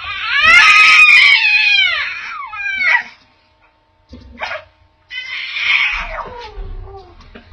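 Loud, high-pitched wailing cries in three bouts, each sliding down in pitch: a long one, a brief one about four seconds in, and another from about five seconds on.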